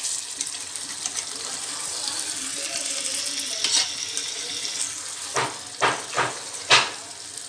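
Chicken pieces sizzling in a karahi of hot oil and spice paste as they are stirred, with four quick knocks of the stirring spoon against the pan in the second half.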